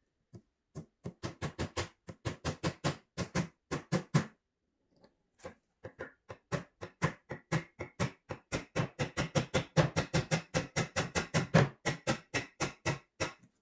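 Small nails being tapped into the IKEA Brimnes TV stand's frame with a pair of pliers used as a hammer: quick, even knocks, about four a second. They come in two runs, with a short pause about four seconds in.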